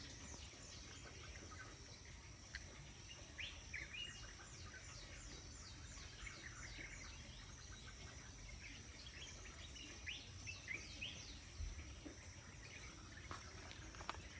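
Faint outdoor ambience: many short, quick chirps sliding down in pitch, with birds calling over a steady high insect hum.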